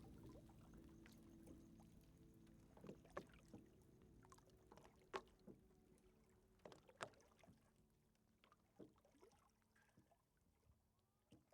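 Faint crackling fire, with scattered sharp pops and snaps over a low steady drone, all fading out.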